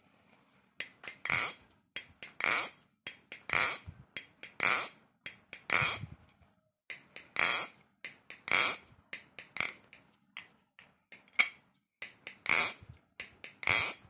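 Yuan 4 balisong being flipped: its metal handles and blade clack together in quick runs of sharp, ringing clicks. The clicking starts about a second in and breaks off briefly around the middle.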